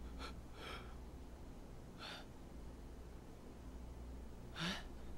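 A man gasping: a few quick breaths at the start, one about two seconds in, and a sharper one near the end. A low steady hum runs underneath.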